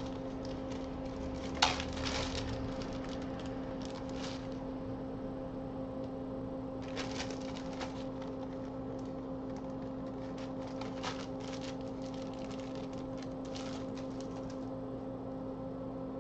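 Scattered small clicks and rustles of small parts being handled, the sharpest about one and a half seconds in, over a steady electrical hum.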